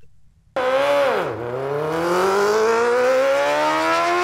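Racing engine sound effect used as a transition: it cuts in suddenly about half a second in, dips briefly in pitch, then climbs steadily as it accelerates.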